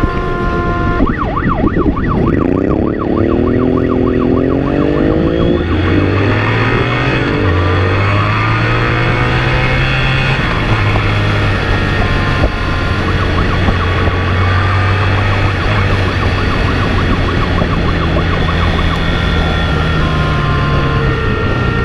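Police motorcycle siren at speed, switching between a steady tone and a fast warble, over the motorcycle's engine climbing in pitch as it accelerates and steps through the gears.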